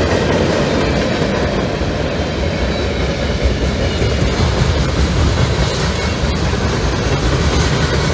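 Freight cars of a CSX mixed freight rolling past at track speed on welded rail: a steady heavy rumble of wheels on rail with a few light wheel clicks.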